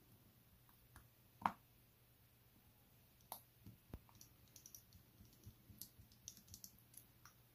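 Faint clicks and ticks of a precision screwdriver turning small screws into a watch's steel caseback, with one sharper tap about a second and a half in, then a run of light, irregular clicks.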